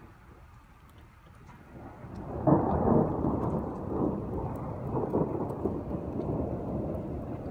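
Thunder during a snowstorm (thundersnow): quiet at first, then a rumble builds from about two seconds in to a sharp, loud peak and rolls on as a long rumble.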